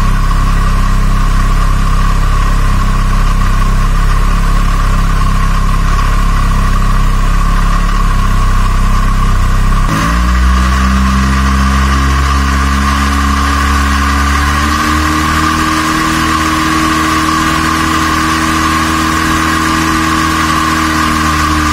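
Gasoline engine running on a test stand, idling steadily, then its speed raised about ten seconds in and again a few seconds later, holding at the higher speed, as in a dynamic ignition timing check with a timing light. A steady high whine runs alongside.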